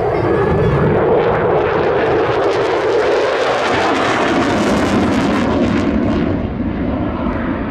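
F-16 fighter jet making a high-speed pass in afterburner: a loud jet noise with a crackle that builds to its peak about four to five seconds in. The crackle fades and the rumble drops in pitch as the jet moves away.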